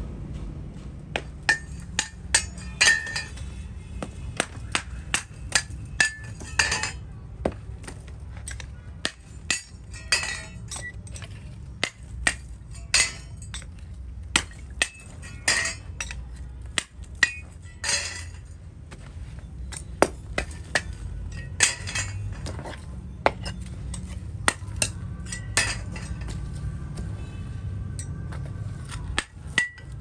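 Brass hand-pump castings being knocked out of the casting bed with a hammer and tongs and tossed onto a pile: irregular metallic knocks and clinks, some with a short ring, over a steady low rumble.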